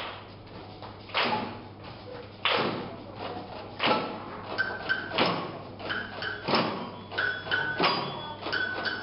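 A children's music ensemble opening a piece: a slow, even beat of loud percussion strikes, about one every second and a half, echoing in a large hall. About halfway in, short high plucked or struck notes join the beat.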